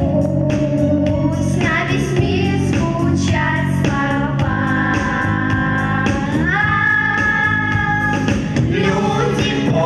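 A song with a woman's voice singing held notes over a steady band accompaniment. The melody steps up to a higher held note about six and a half seconds in.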